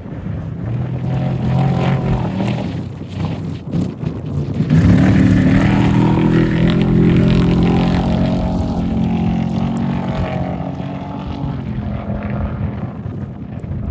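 Off-road race vehicle engine passing at speed: a fainter engine in the first few seconds, then a much louder one that comes up sharply about five seconds in and slowly fades away.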